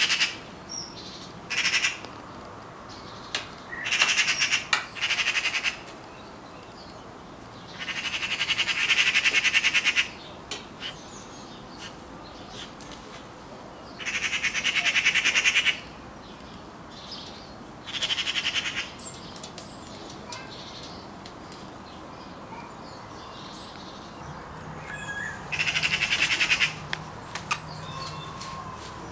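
Eurasian magpie chattering: repeated harsh, rattling alarm chatter in bursts of one to two seconds, several seconds apart.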